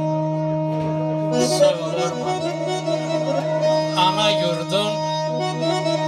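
Electronic keyboard playing an instrumental interlude of a folk song: a winding melody over a steady held drone note.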